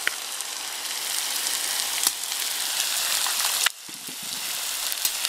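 Chopped onions sizzling as they fry in about half a litre of hot sunflower oil in a cast-iron kazan, a steady hiss with a few small crackles. The sound breaks off sharply for a moment about two-thirds through and then resumes.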